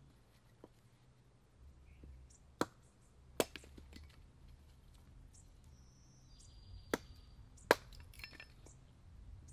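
Sharp wooden knocks of a carpenter's axe splitting small kindling on a block: four main strikes, a pair about three seconds in and another pair about seven seconds in, with a few lighter taps between.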